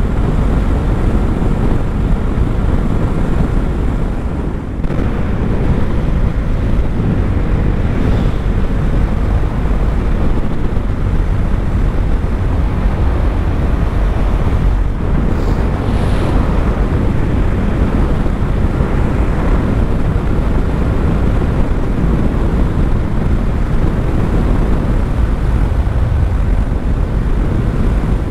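Steady rush of wind buffeting the microphone of a Bajaj Dominar motorcycle cruising fast on an expressway, with the bike's engine and road noise underneath.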